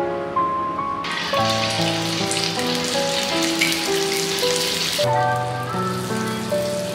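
Rice-paper seaweed rolls (gimmari) deep-frying in hot oil in a wok, crackling and sizzling. The sizzle starts about a second in and is loudest until about five seconds in, over background music.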